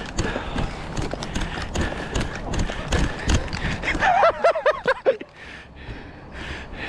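Running footsteps with irregular thuds and knocks, the impacts of a person moving fast on foot. About four seconds in, a short wordless vocal sound with a wavering pitch, like a shout or laugh, cuts across it.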